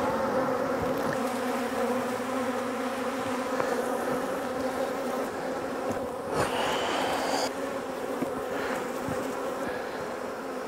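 Honeybees buzzing in a steady, many-voiced hum around opened hives, with a few light knocks.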